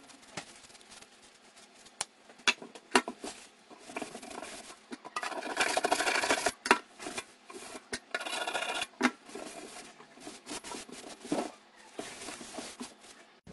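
Paper towel wiped and scrubbed hard around a stainless steel sink's drain opening with rubbing alcohol, cleaning off old plumber's putty residue. Scattered light taps and knocks, with two spells of loud scrubbing about halfway through.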